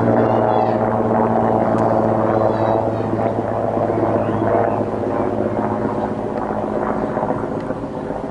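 Mi-8-family military helicopter flying low overhead: a steady drone of its turbine engines and main rotor with a constant low hum, easing off slightly toward the end as it moves away.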